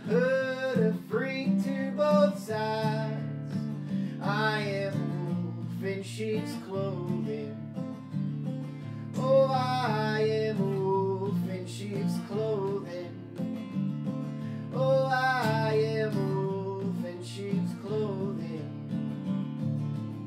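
A steel-string acoustic guitar strummed steadily, with a man singing wordless, sliding vocal phrases over it four times.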